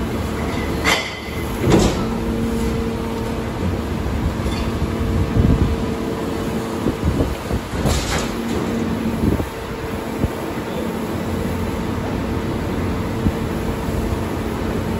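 Leach rear-loader garbage truck running its packer to crush demolition waste. Loud knocks and bangs of debris come about a second in, near two seconds and near eight seconds. A steady engine-and-hydraulic hum holds from about two to nine seconds, then drops away.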